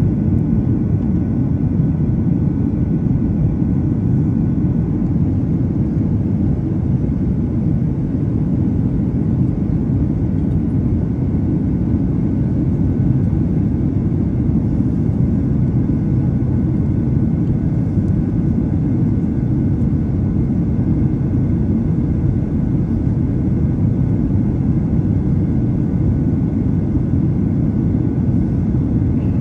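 Steady low roar of a jet airliner's engines and airflow heard from inside the passenger cabin on approach to landing, with faint steady whining tones above it.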